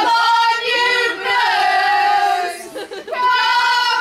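A group of supporters singing a drawn-out football chant together in long held notes, with a brief break about three seconds in.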